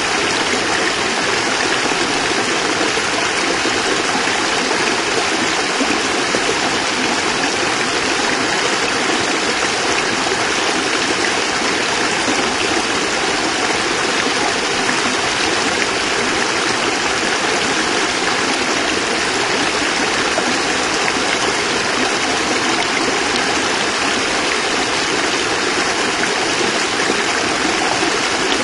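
Small cascade of water falling and splashing steadily, an even, unbroken rush.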